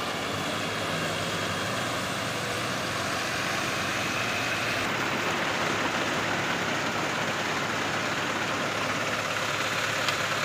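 Champ CF-1052 rubber-tracked tractor's engine running steadily under load as it drives a rear rotary tiller through flooded paddy mud, with the churning of mud and water.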